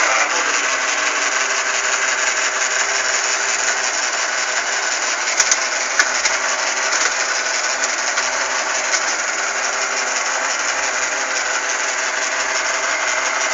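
Sharp COCOROBO robot vacuum cleaner running as it drives back to its charging base: a steady motor noise, with two short clicks about five and six seconds in.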